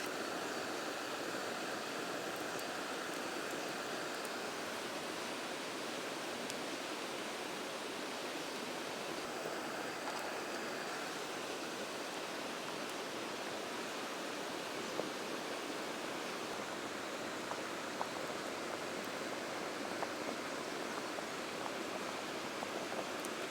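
Steady rushing of a mountain stream, with a few sharp clicks near the end.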